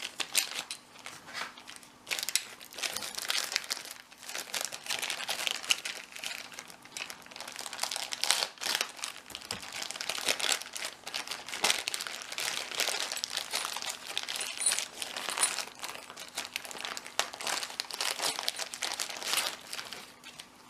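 Packing paper being crumpled and pulled apart by hand, with a continuous irregular crackle and rustle.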